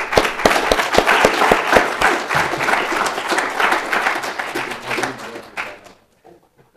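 An audience applauding, the clapping tapering off and stopping near the end.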